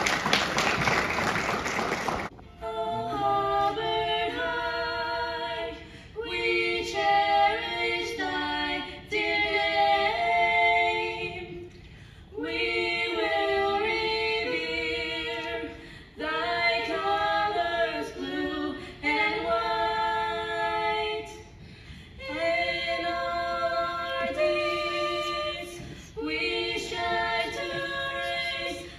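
Brief applause for about two seconds, then a small group of young women singing a cappella into a microphone, in phrases of a few seconds separated by short breaths.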